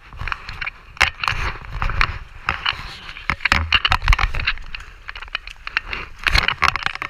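Water splashing and sloshing as a landing net is swept through shallow river water and a hooked steelhead thrashes at the surface, with many sharp crackling knocks and a low rumble.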